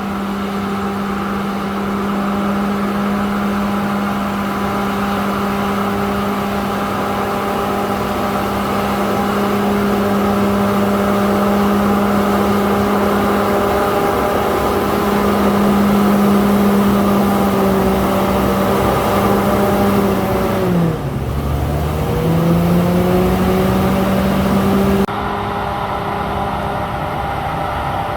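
Komatsu D68ESS bulldozer's diesel engine running steadily at working revs. About three-quarters of the way through, the engine pitch dips briefly and then climbs back up.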